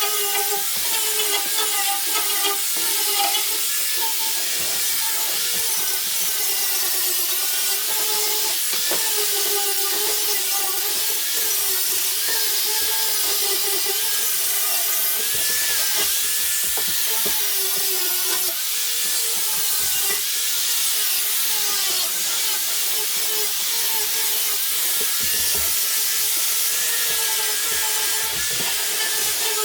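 Power sander running against the tailgate panel: a steady hiss with a motor whine that wavers in pitch as the load changes, while the tailgate is sanded before being sprayed with bed liner.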